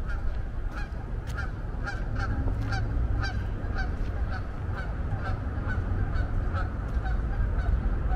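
Geese honking in a steady series, about two short calls a second, over a steady low rumble.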